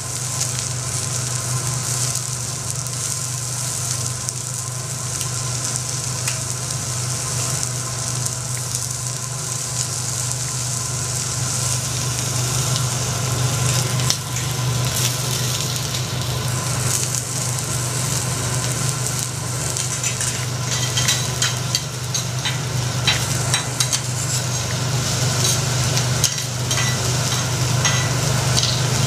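Lobster sizzling on a hot teppanyaki steel griddle, a steady frying hiss. From about two-thirds of the way in, the chef's knife and fork click and scrape against the steel. A steady low hum runs underneath.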